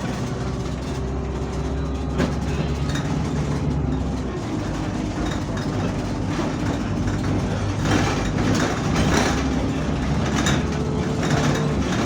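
Bus engine running under way, a steady low hum with a constant whine, with rattling bursts from the body about two-thirds of the way through.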